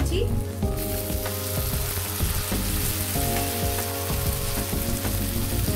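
Chopped tomatoes going into hot mustard oil with fried onions in a kadai, frying with a steady sizzle that grows sharper and louder about a second in as the wet tomato hits the oil.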